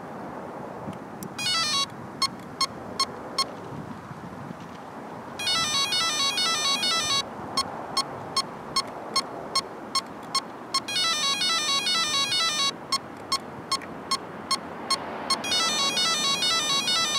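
Electronic background music: repeating runs of quick beeping tones and regular ticks, starting and stopping in blocks over a steady hiss.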